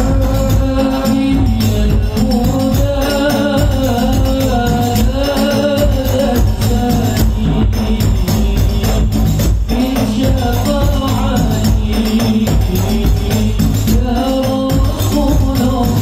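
A man singing an Arabic devotional song (sholawat) into a microphone through a PA sound system, over hand percussion and a strong low bass.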